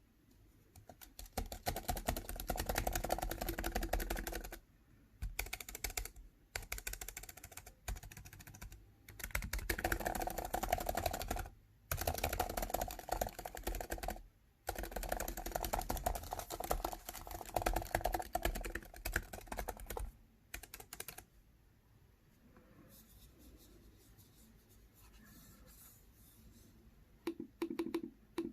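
Typing on a computer keyboard: fast runs of key clicks in bursts of a few seconds with short pauses. The typing stops about three-quarters of the way in and picks up again briefly near the end.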